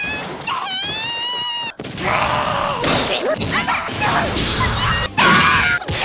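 An anime girl's high-pitched voice letting out a long, drawn-out cry that cuts off abruptly. It is followed by quick-cut clips of short screams and yelps over crashing, smashing sound effects.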